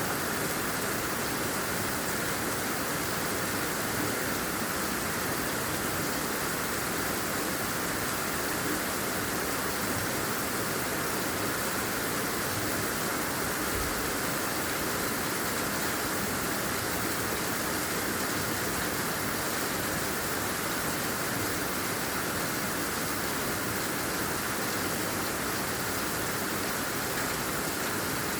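Heavy, generous rain falling steadily, an even unbroken hiss of water.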